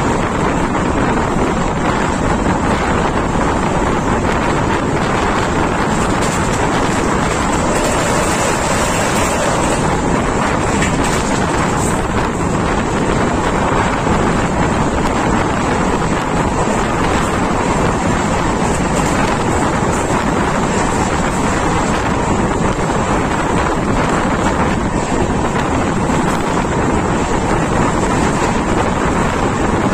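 Steady rush of wind on the microphone over the running rumble of a moving Indian Railways passenger coach, recorded at an open coach window.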